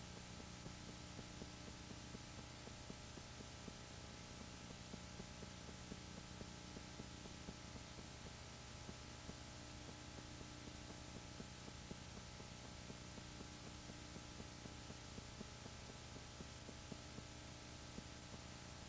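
Faint steady electrical hum with even hiss and scattered small clicks. This is background noise with no sound from the skating itself.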